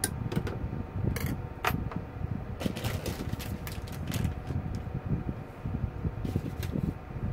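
Metal tongs and a lid clinking against a stainless-steel saucepan, with a dozen or so short sharp clicks scattered through, and a ramen packet crinkling in the hand, over a steady low hum.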